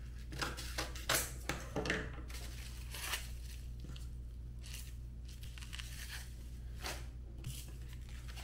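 Scissors cutting across a wide strip of stiff hook-side velcro: a few short, crunchy snips in the first three seconds, then a couple of softer handling noises as the strip is laid down.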